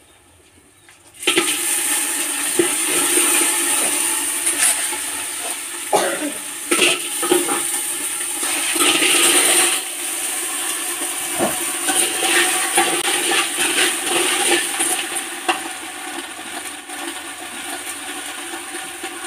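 Snails tipped into hot oil in a pot, sizzling loudly from about a second in, with scattered knocks of shells and a utensil against the pot.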